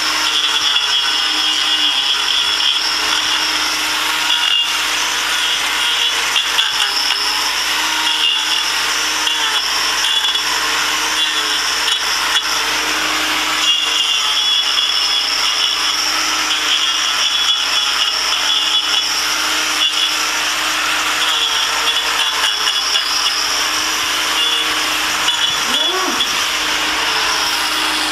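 Hand-held power grinder running steadily as it trims down a cow's hooves.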